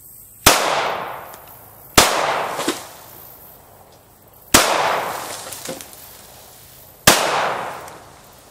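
Four shots from a 9mm Glock 19 Gen 4 pistol, about two seconds apart, each followed by a long echoing decay.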